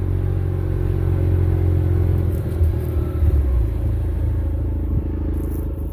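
Kubota engine running steadily with a low rumble, the pitch wavering a little about halfway through.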